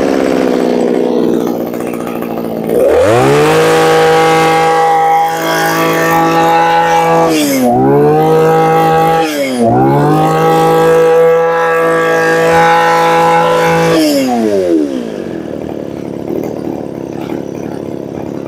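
Mitsubishi TL231 two-stroke brush-cutter engine idling, then revved up to a high, steady pitch about three seconds in. It is held there with two short dips in speed and dropped back to idle a little after two-thirds of the way through. It revs very fast.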